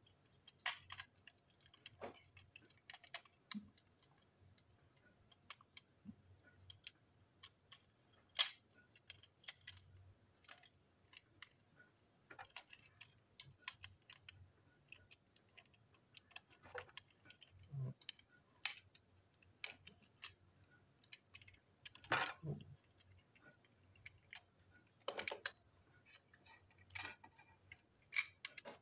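Irregular small clicks and taps of hard plastic toy-train parts being handled and fitted together, with a louder knock about eight seconds in and a cluster around twenty-two seconds.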